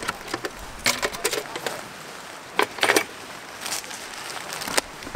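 Camping gear being unpacked from a plastic canoe barrel: a few sharp knocks and clatters as the barrel lid and a frying pan are lifted off and set down on pebbles, with rustling as a nylon dry bag is handled.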